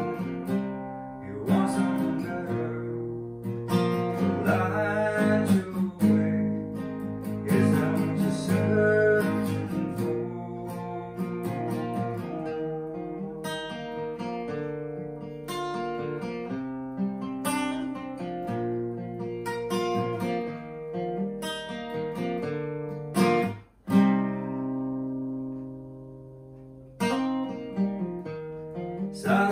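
Solo acoustic guitar playing a song passage of picked and strummed chords. Near the end the playing stops for an instant, a single chord rings out and fades, then the playing picks up again.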